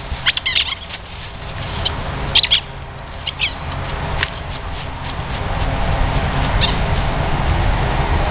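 Rubber squeaky dog toy squeaking in short bursts, several times at irregular intervals, over a steady low rumble.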